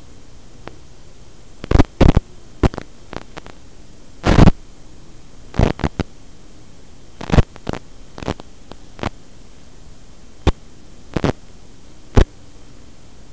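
Radio static from an analog FPV video link: a steady hiss broken by about a dozen loud, sharp crackles at irregular intervals, with a faint wavering hum underneath.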